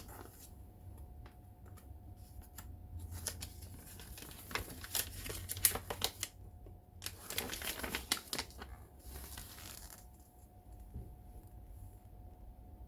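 Paper pages of a thin instruction manual being flipped and handled, with bursts of rustling and page clicks between about three and ten seconds in.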